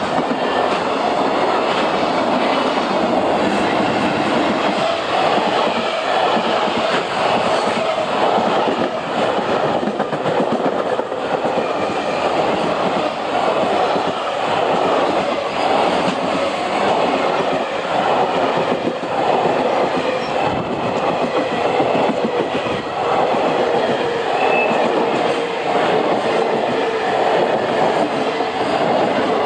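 Wagons of a long freight train loaded with shipping containers rolling past close by, with a steady loud rumble and a constant run of wheel clicks over the rail joints.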